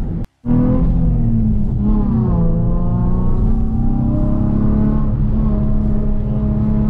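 Nissan 350Z's 3.5-litre V6 heard from inside the cabin while driving, after a brief dropout near the start. Its note rises and eases back about two seconds in, then holds a steady pitch.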